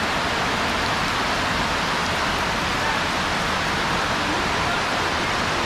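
Heavy rain falling: a huge downpour, heard as a steady, even hiss.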